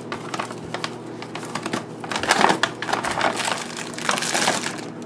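Paper flour bag and its plastic inner bag crinkling and rustling as they are handled and pulled open, in irregular crackles throughout.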